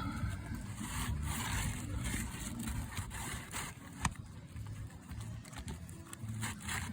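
Asphalt roof shingles scraped and pulled up by hand, in two rough scraping stretches, with one sharp click about four seconds in, over a low rumble.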